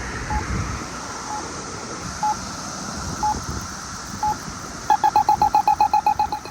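Campbell accessible pedestrian signal pushbutton at a crosswalk, giving a short beep about once a second: the locator tone. About five seconds in, it switches to a fast, louder run of the same beep, roughly ten a second, the rapid tick that signals the walk phase.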